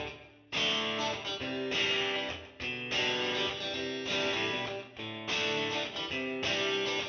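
Background music: a plucked guitar playing a melody in short phrases of about a second each.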